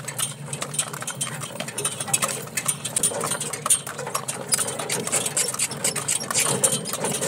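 Horse-drawn cart moving along a stony dirt road: the horse's hooves clip-clopping, with the cart's wheels and shafts rattling in a steady run of clicks and knocks.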